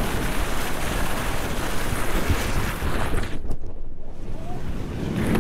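Wind buffeting a following skier's camera microphone, mixed with the hiss of skis carving over groomed snow at speed. The high hiss drops away for about half a second around three and a half seconds in, as the skis leave the snow off a jump.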